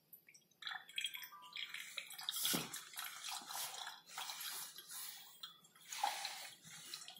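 A thin stream of liquid from a solenoid valve's outlet tube trickling and splashing unevenly into a stainless steel cup as the cup is filled. There is one low knock about two and a half seconds in.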